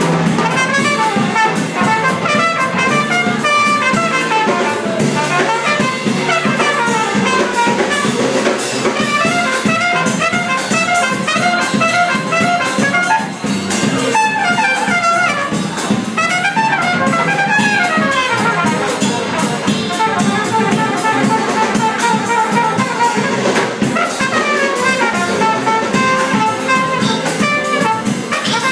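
Live small jazz band: a trumpet leads, playing quick runs that climb and fall, over upright bass and a drum kit.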